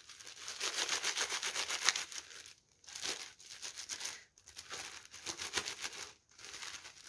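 Plastic zip-lock bag crinkling as hands rub and crush the dried chrysanthemum seed heads inside it to thresh out the seeds. It is a dense crackle that stops briefly three times.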